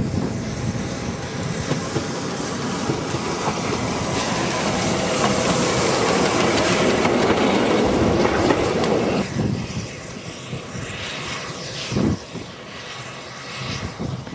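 Steam locomotive and its train passing at close range: the running noise grows louder for several seconds, then falls away suddenly just after nine seconds in as the train goes by and moves off.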